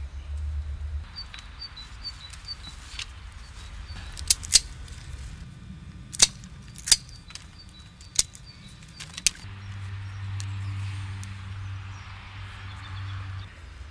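Six sharp snaps, mostly in pairs, from hands working a grapevine and its wire tie, with small bird chirps and a low steady rumble underneath.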